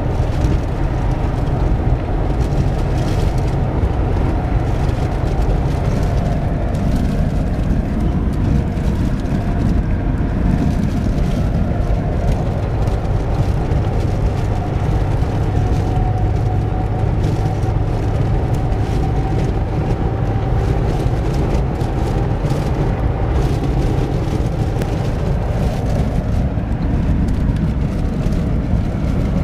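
Steady engine and road noise inside a vehicle cruising at highway speed: a continuous low rumble with a faint hum above it.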